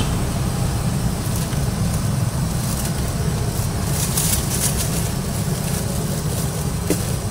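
Steady roar of a gas burner under a large covered wok of capcay simmering in red sauce, with faint hiss and crackle from the cooking that briefly grows about four seconds in.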